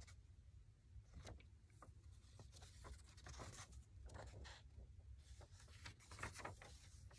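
Faint, irregular rustling and crinkling of an old yellowed newspaper clipping being handled, flipped over and shown.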